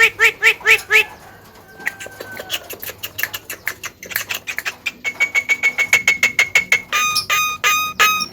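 Javan myna calling: a fast run of repeated chattering notes for about a second, then quieter clicks, then from about five seconds in rapid runs of clear repeated whistled notes.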